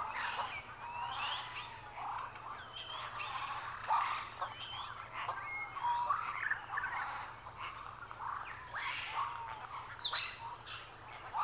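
A chorus of many birds singing and calling: short chirps and whistles, rising and falling, overlapping one another, with one louder, higher call near the end.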